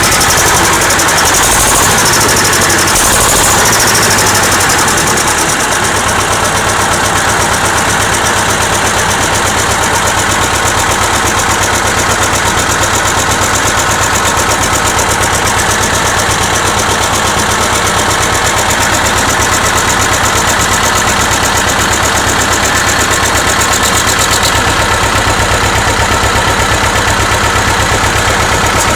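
T-25 tractor's two-cylinder air-cooled diesel running. It is louder and uneven for the first few seconds, then settles into a steady idle about five seconds in.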